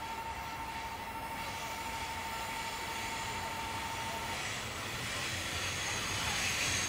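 Train approaching a railroad level crossing, its rail noise swelling and growing louder toward the end. A steady high tone runs under it and stops about two-thirds of the way through.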